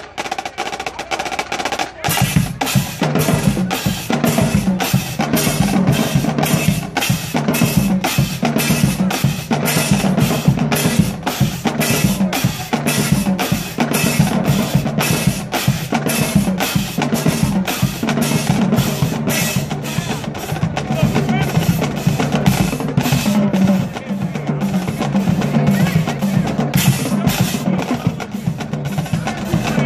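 Marching drumline of snare drums and bass drums playing a fast, steady rhythm. The full line comes in louder about two seconds in.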